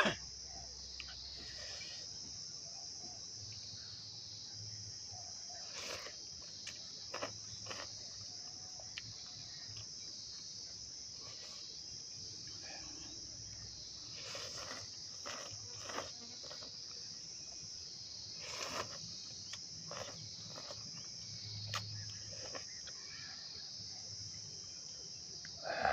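Steady, high-pitched chorus of insects such as crickets, with scattered faint clicks and knocks over it.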